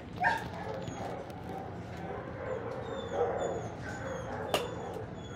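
Dogs barking in a shelter kennel: a sharp bark just after the start and another about three seconds in, with faint high yips between and a single sharp click near the end.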